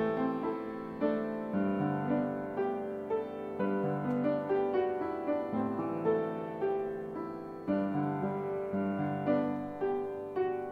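Background piano music, with notes and chords struck about twice a second, each one ringing and then fading.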